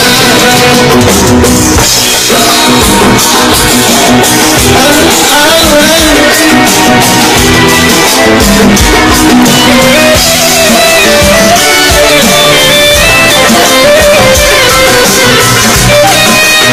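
Live rai music played loud by a band: a drum-kit beat under a wavering lead melody.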